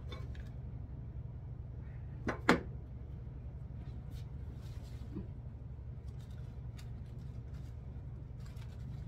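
Two sharp clicks a fraction of a second apart, about two seconds in, from craft materials being handled on a work table, over a steady low hum. A few fainter ticks and rustles follow.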